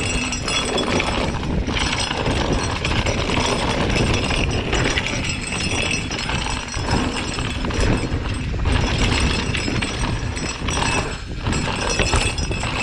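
Mountain bike clattering down a loose, dusty dirt trail: tyres rolling and crunching over powdery dirt and stones, with the chain and frame rattling continuously, picked up by a camera mounted on the bike.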